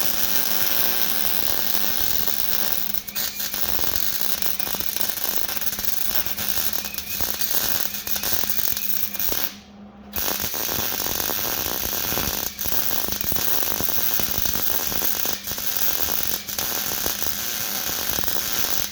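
Gas-shielded MIG wire welder laying a bead on 3/16-inch steel frame stiffeners, with a steady dense crackle. The arc stops for about half a second a little past halfway, then strikes again and keeps crackling.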